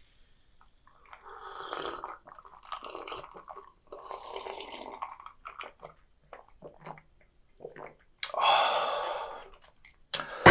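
Gulping swallows of iced Sprite drunk from a glass mug for about four seconds, a loud exhale after the cold drink about eight seconds in, then a sharp knock of the glass mug set down on the table near the end.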